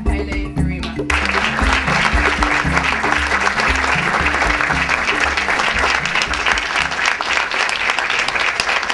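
Audience applause that breaks out suddenly about a second in and keeps going, over music with a repeating bass line.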